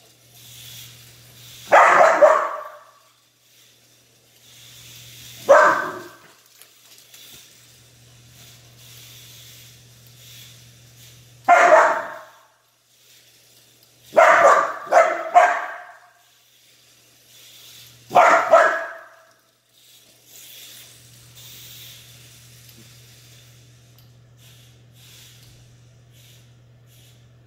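An Aussiedoodle barking at a mini remote-control car: single loud barks every few seconds, with three quick barks in a row about halfway through. Between the barks the toy car's small electric motor whirs faintly and steadily.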